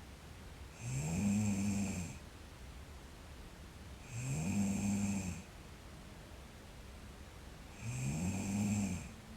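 A sleeping girl snoring: three snores about three and a half seconds apart, each lasting about a second and a half with a tone that rises and then holds.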